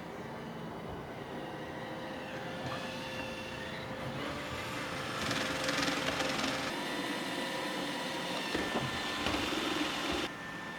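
Roomba 800-series robot vacuum running: a steady motor hum and whine with brush noise, swelling louder for a second or so about five seconds in. A few knocks follow near the end, then the sound drops suddenly.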